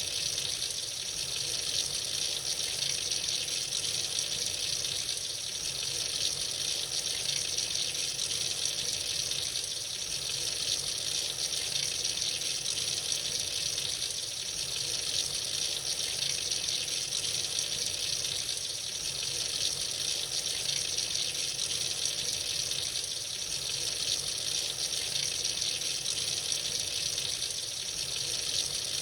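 Tap running freely into a sink: a steady, unbroken gush of water.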